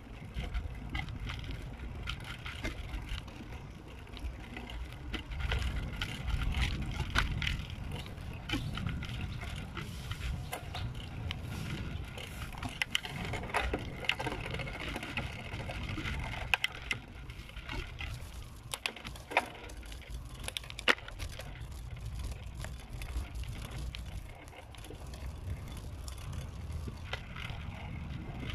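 Riding a bicycle along a concrete road: a steady low rumble of wind and tyres, with scattered rattling clicks and knocks from the bike.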